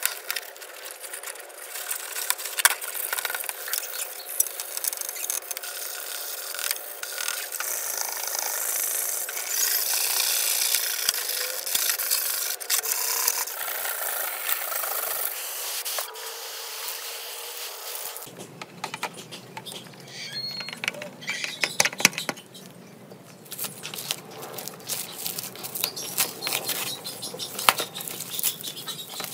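Cloth and a pad rubbing and scrubbing over a monitor's plastic bezel and metal back plate, a dense scraping that runs for most of the first two thirds. After a sudden change, scattered light clicks and crinkling of plastic protective film being peeled off an LCD panel.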